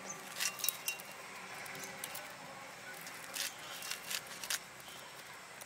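Kitchen knife slicing through a rolled bundle of pumpkin leaves, with glass bangles clinking on the working wrists. Together they make a handful of short, sharp, irregular clicks and chinks.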